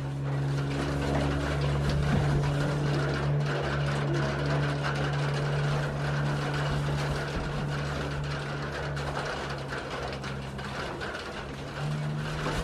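A small motor or engine running steadily with a low, even hum that dips and comes back at a slightly higher pitch near the end, over a steady hiss.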